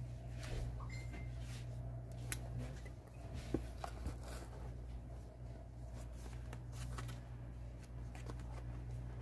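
Cardboard phone box and its packaging being handled and opened: light rustling with scattered small clicks and taps, one sharper tap about three and a half seconds in, over a steady low hum.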